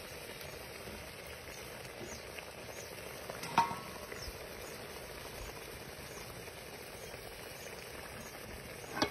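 Rice cooking in red palm oil and water in a metal pot, sizzling steadily. A single sharp clink comes about three and a half seconds in.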